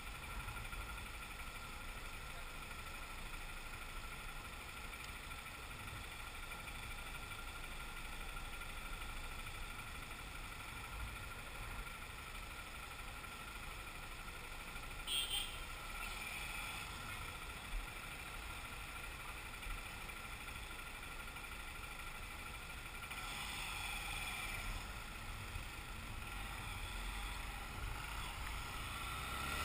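Motorcycle engine idling, a steady low rumble, while stopped at a junction amid light city traffic; it picks up slightly near the end as the bike moves off.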